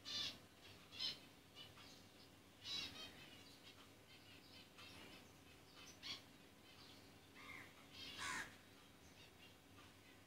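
A swift held in the hand giving short, high, rapidly trilled calls in about five brief bursts a few seconds apart.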